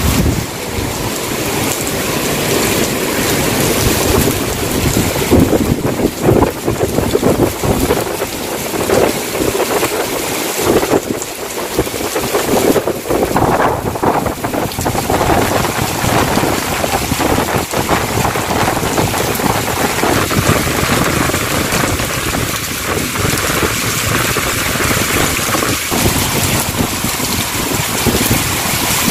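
Heavy tropical downpour hissing onto pavement, road and parked cars, with strong gusts of wind buffeting the microphone now and then.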